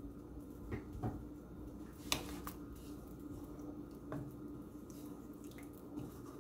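Faint, scattered clicks and taps, the loudest about two seconds in, over a steady low hum.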